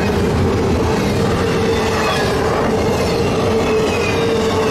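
Double-stack intermodal container train rolling past at close range: the steady running noise of steel wheels on rail, with a steady tone through it and faint high wheel squeals.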